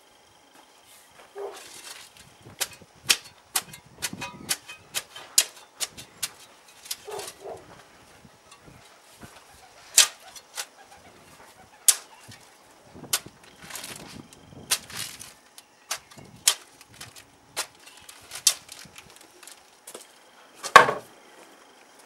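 Metal spade digging into stony, muddy ground: irregular scrapes and sharp knocks of the blade in the soil, with a heavier knock near the end.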